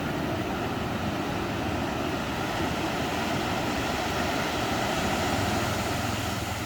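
Ocean surf washing onto a beach: a steady rush of waves that eases slightly near the end.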